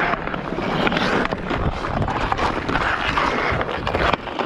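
Hockey skates scraping and gliding over snow-covered outdoor ice in repeated strides, with a few sharp clicks of sticks on the puck.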